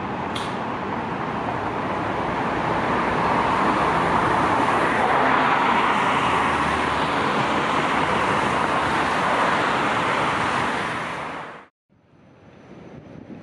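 Street traffic with Vienna low-floor trams and cars passing: a steady rushing roll that swells to its loudest around the middle, with a short high squeak about half a second in, then cuts off suddenly near the end.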